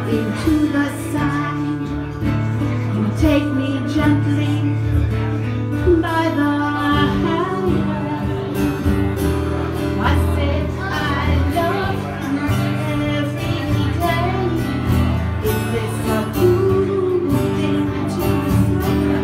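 A woman singing a song into a microphone, accompanied by an acoustic guitar.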